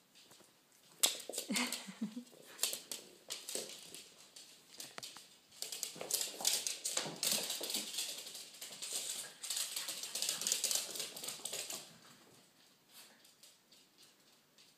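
A small dog's claws clicking and scrabbling on a hard wood floor as it plays with a ball toy. The clicking is densest and loudest from about six to twelve seconds in, then thins out.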